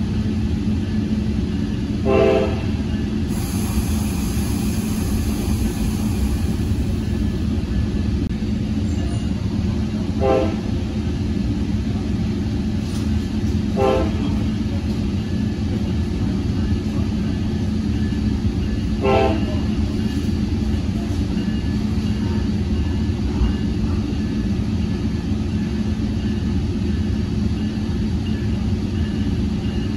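Steady rumble and hum of a Tri-Rail commuter train in motion, heard from inside a passenger coach. Four brief higher-pitched tones sound a few seconds apart over it.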